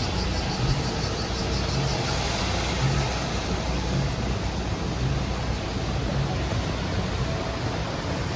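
A steady low engine drone under an even rushing noise, as heard riding in a moving vehicle.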